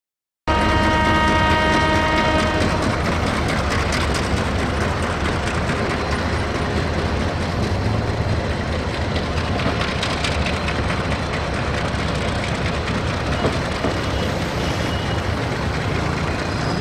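A train horn blows for about two seconds just after the start, over the steady rolling noise of a long freight train of tank wagons and container wagons running past on the tracks, with faint clicks from the wheels.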